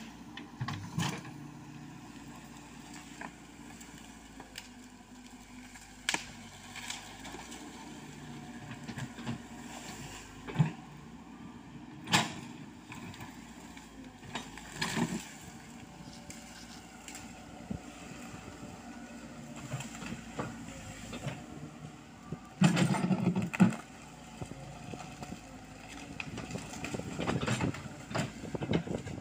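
Komatsu PC78US mini excavator's diesel engine running steadily as the machine digs. Scattered sharp knocks and cracks come from the bucket working through soil and bamboo, with a loud burst of about a second roughly three-quarters of the way through.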